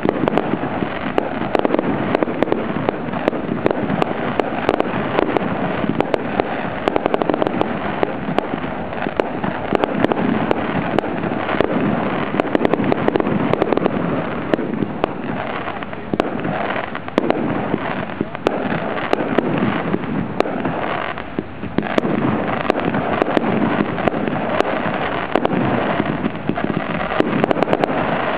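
Fireworks display: a loud, dense, continuous crackle of many small pops and bangs from aerial shells bursting and a ground fountain spraying sparks.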